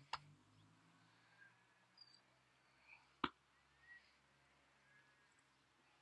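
Near silence, broken by two sharp clicks, one at the very start and a louder one about three seconds in. A few faint short bird chirps sound in between.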